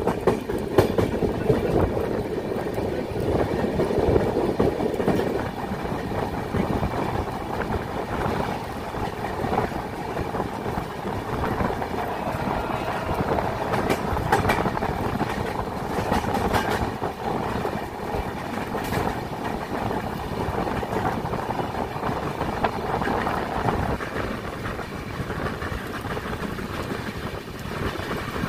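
Passenger express train running at speed, heard from an open coach doorway: a steady rumble of wheels on rail, with a few sharp clicks over rail joints about halfway through.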